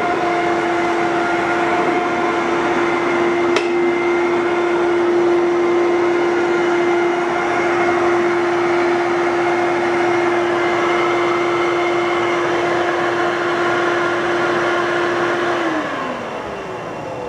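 11-amp Fantom upright vacuum cleaner running with a steady motor whine, with a single click about three and a half seconds in. Near the end it is switched off and the motor winds down in falling pitch.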